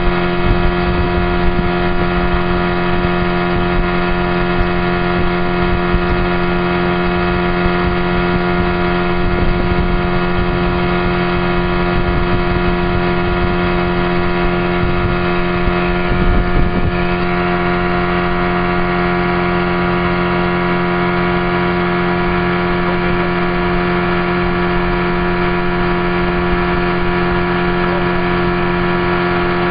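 Motorboat engine running at a steady speed, a constant droning hum with a low rumble underneath.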